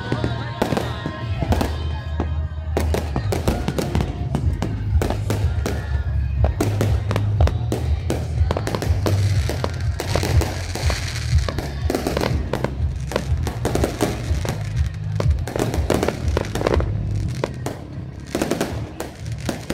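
Fireworks bursting in rapid, overlapping volleys, with many sharp bangs and crackles throughout, over music with a heavy bass.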